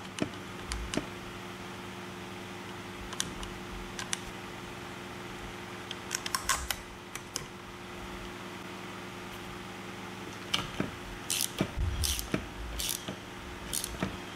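Scattered light clicks and clinks of a socket wrench and metal parts as bolts are fitted on an outboard motor's lower-unit gearcase, over a steady low hum. The clicks come more thickly in the last few seconds.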